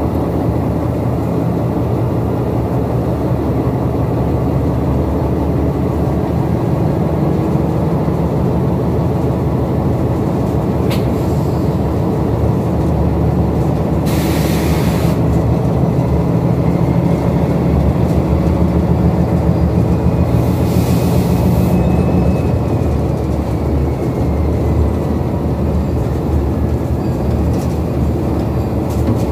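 Locomotive's diesel engine running in a steady drone, heard from inside the cab, with two short bursts of hiss, one about halfway through and another a few seconds later.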